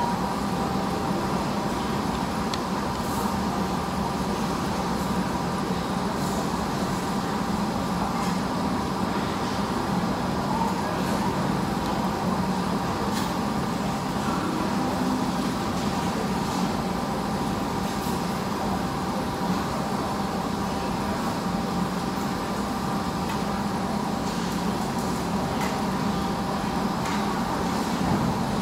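Steady background hum of a large open eating hall: a continuous low din with a few faint held tones. A few light clicks come through now and then.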